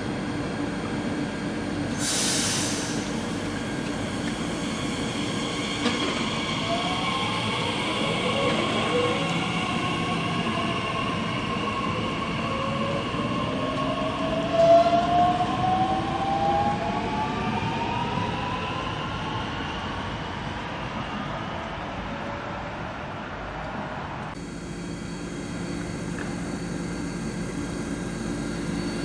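Bombardier Talent 2 class 1442 electric multiple unit pulling away, its traction drive whining in several tones that rise in pitch as it accelerates, after a short hiss of air about two seconds in. Near the end a second Talent 2 runs on the neighbouring track with a steady hum.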